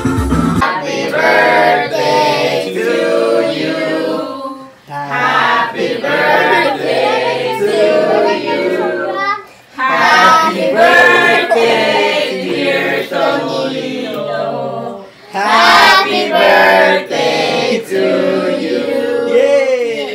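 A group of voices, children's among them, singing a birthday song together in four phrases with short breaks between them.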